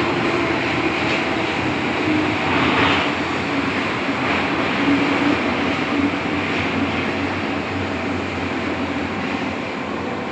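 MTR M-Train on the Island Line: a steady rumble with a low hum running through it, slowly getting quieter.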